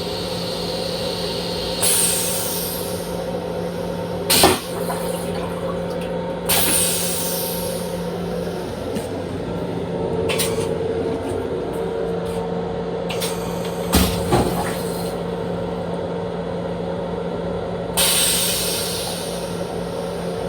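Steady mechanical hum inside an M7 electric railcar's restroom, broken three times by short hisses of air that fall in pitch, and by a few sharp knocks.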